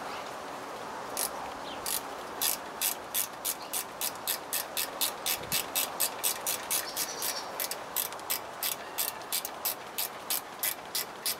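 Small ratchet wrench clicking in a steady rhythm, about three clicks a second, as a bolt on the fuel rail of a Jeep 4.0 engine is turned.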